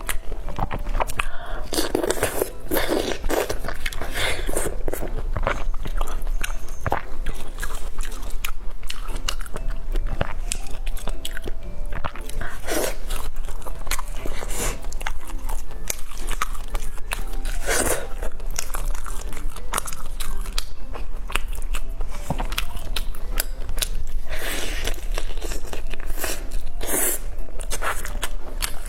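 Biting and chewing of a braised pork knuckle: a run of irregular short clicks, crunches and mouth noises.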